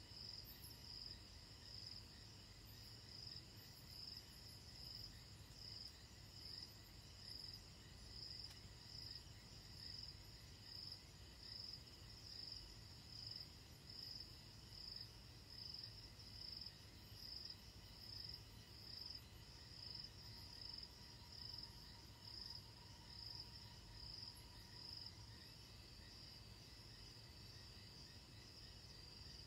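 Faint night-time insect chirping, a high pulse repeating evenly a little more than once a second, over a steady low rumble.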